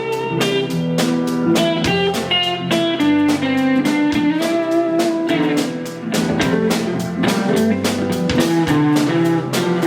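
Music: guitar playing a melody over a drum kit keeping a steady beat.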